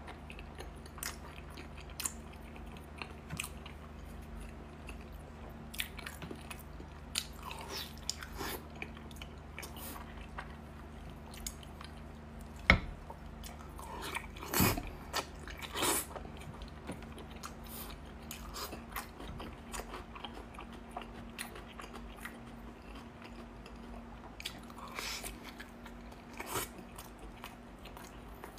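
Close-up mouth sounds of a person biting and chewing braised meat, with scattered clicks throughout and a sharp click about 13 seconds in.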